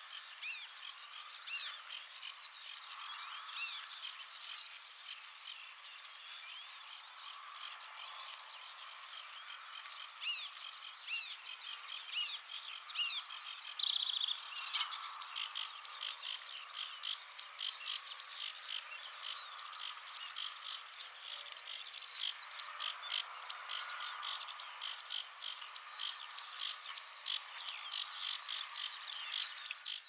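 Male corn bunting singing: each song is a run of dry ticks speeding up into a short, loud, high jangle. It sings four times, about 4, 11, 18 and 22 seconds in, over softer chirping and ticking in the background.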